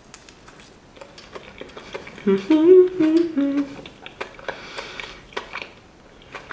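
A woman's closed-mouth hum with her mouth full, stepping up and down in pitch for about a second and a half, starting a little over two seconds in. Around it are short crisp crunching clicks of her chewing a cracker.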